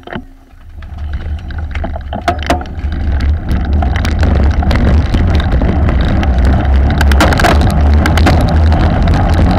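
Wind buffeting the bike-mounted camera's microphone, with road-bike tyres rumbling on brick paving, as a bunch of racing cyclists gets up to speed; the noise grows louder over the first four seconds, then holds steady. A few sharp clicks in the first three seconds as riders clip into their pedals.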